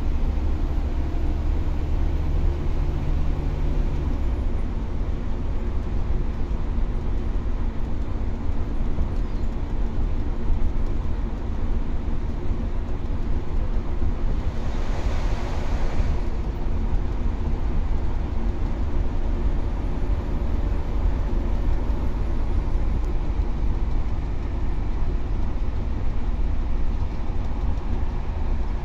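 Scania K320UA bus running along a concrete guided busway: a steady rumble of engine and tyres on the track, with a brief hiss about halfway through.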